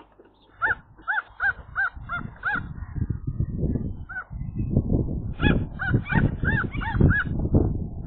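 Common gull giving quick runs of short, arched calls: about six notes, a pause, then about eight more, alarm at a magpie at the nest. From a few seconds in, loud bumping and rustling comes from the gull shifting and raising its wings in the straw nest box.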